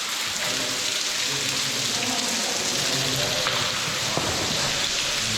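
Steady rush of falling water from an underground waterfall, with faint muffled voices beneath it.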